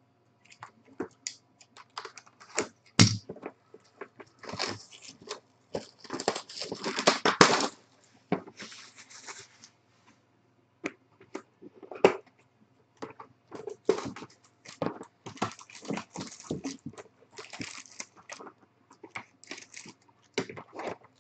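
Plastic wrapping crinkling and being torn open on a sealed trading-card box and pack, with clicks and light knocks of the cardboard being handled. A longer stretch of crinkling comes about six to eight seconds in, and sharp snaps come about three and twelve seconds in.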